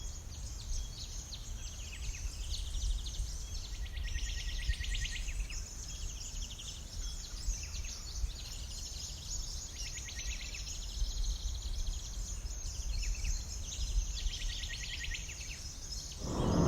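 Birds calling in repeated rapid high trills over a steady low rumble. Just before the end a much louder noise sets in abruptly.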